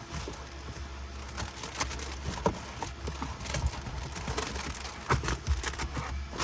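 Rustling, scraping and scattered light taps of a window cover being worked and pressed into a vehicle's window frame, over a steady low hum.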